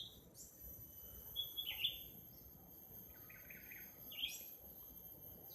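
Hijau sami bird giving short, scratchy chirps in small clusters, about a second and a half in and again between three and four and a half seconds, over a steady high-pitched insect drone.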